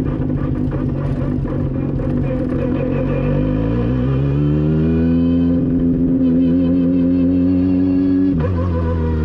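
Two-rotor Mazda 13B Renesis rotary engine of a Pro Formula Mazda race car pulling under throttle. Its pitch climbs steadily from about three seconds in and holds high, then drops abruptly near the end as the revs fall away.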